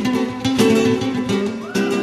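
Two acoustic guitars, a steel-string and a nylon-string flamenco guitar, playing fast, flamenco-flavoured lines together in a live concert recording.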